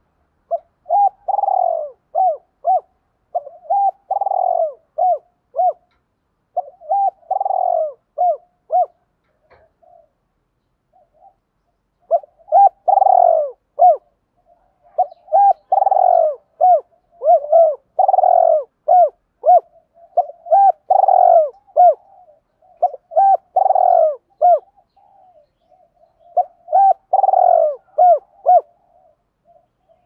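Spotted dove cooing: repeated phrases of several short rounded coos, the first coo of each phrase longer and louder. The dove pauses about a third of the way in, then calls again with the phrases coming closer together.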